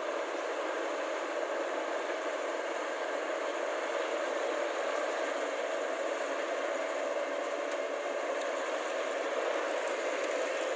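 Rice combine harvester's engine running steadily, heard as an even, thin mechanical noise with no low end.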